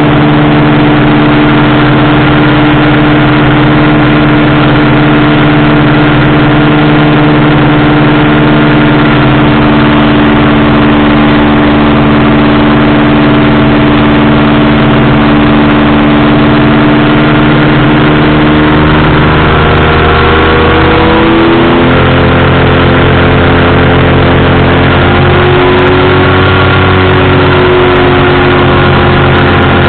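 Powered parachute engine and propeller droning loudly and steadily at close range. Its pitch shifts about two-thirds of the way through and wavers again near the end.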